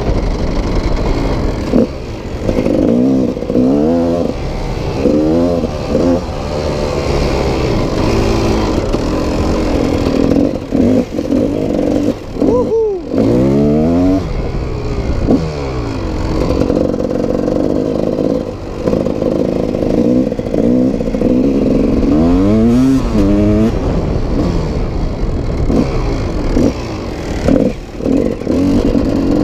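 GasGas dirt bike engine being ridden, its pitch rising and falling many times as the throttle is opened and closed.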